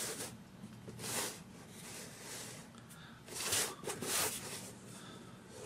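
A cardboard box being handled and slid on a tabletop: a few short scraping rustles, two of them close together a little past the middle.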